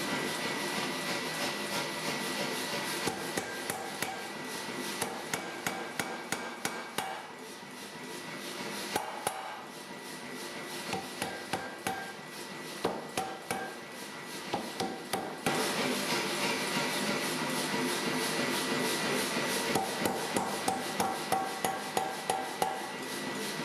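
Hammer blows forging a steel bar, drawing it down to a taper, in runs of sharp strikes that turn regular at about three a second near the end. A steady hiss sits underneath.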